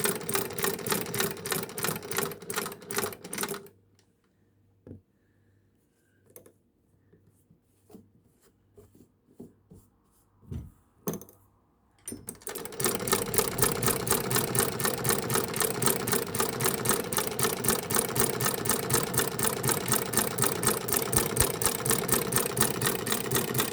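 Antique Singer 12K sewing machine stitching with a quick, even ticking rhythm, stopping a few seconds in. A quiet stretch with a few scattered clicks follows, then the machine starts again about twelve seconds in and runs steadily, sewing a straight seam.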